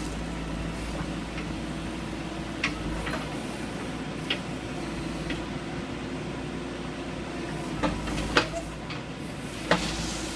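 Backhoe engine running steadily with a low hum, with sharp metallic clanks and knocks now and then, a cluster of them near the end.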